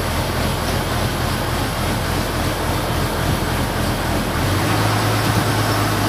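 A boat's engine running steadily, heard inside the cabin as a continuous drone with a low hum; a deeper hum comes in about two-thirds of the way through.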